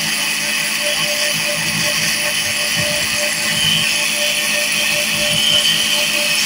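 Cotton candy machine running steadily, its cast spinner head turning at speed and its motor humming as it spins sugar into floss.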